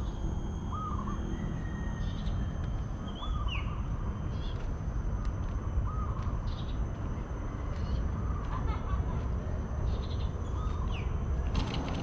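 Birds calling at intervals: short hooked notes, some lower and some higher-pitched, repeating every second or two over a steady low rumble.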